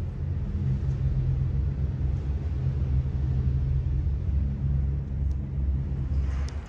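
A deep, steady low rumble with almost nothing higher in pitch above it, dropping in level near the end.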